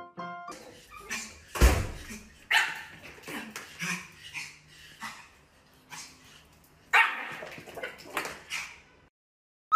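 Small puppy barking in short, sharp yaps at irregular intervals, with one loud thump about one and a half seconds in.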